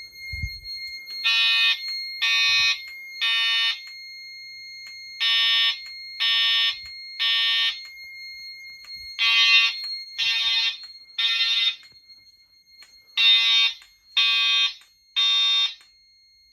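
EST Genesis speaker strobes on a voice-evacuation fire alarm system sounding the temporal-three evacuation tone: four groups of three short beeps, each group followed by a pause of about a second and a half. This alarm tone leads into the recorded evacuation message. A faint steady high-pitched tone sounds underneath.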